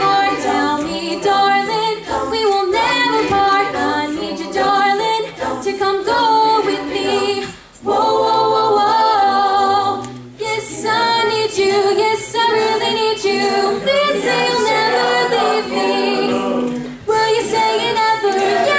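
Mixed-voice a cappella group singing in harmony into handheld microphones, several voices layered with no instruments, with short breaks in the sound about 8 and 10 seconds in.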